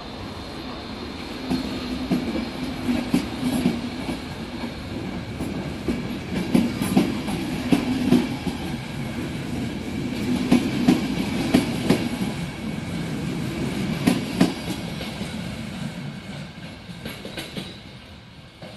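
Passenger coaches of an electric-hauled train rolling past close by, their wheels clattering over the rail joints in pairs of sharp clicks over a steady rumble. The sound fades near the end as the last coach draws away.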